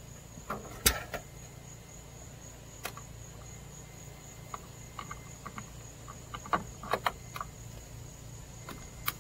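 A steady, high insect trill runs through, over a low hum. Scattered sharp clicks and knocks come on top of it, the loudest about a second in and a cluster around seven seconds in.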